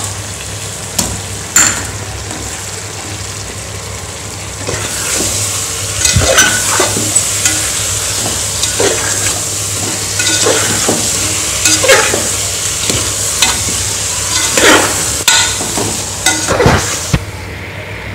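Chicken leg pieces sizzling in oil and masala in a pressure cooker pot, stirred with a metal perforated spatula that scrapes and knocks against the pot now and then. The sizzling hiss grows louder about five seconds in.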